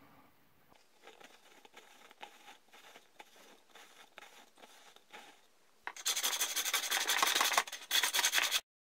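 Hand hacksaw cutting through a grey plastic pipe with fast back-and-forth strokes. It starts loud about six seconds in, pauses briefly, and stops abruptly near the end. Before it comes faint scratching of a felt-tip marker drawing a cut line around the pipe.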